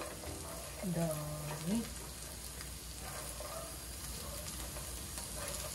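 Cubed tofu and vegetables sizzling in a nonstick frying pan while being turned over with a spatula.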